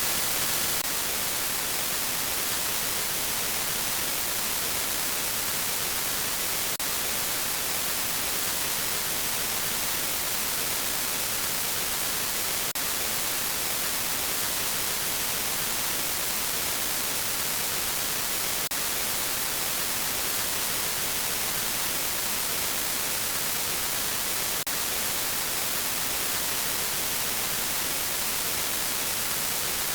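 Steady static hiss, like white noise, strongest in the treble, with a faint tick about every six seconds.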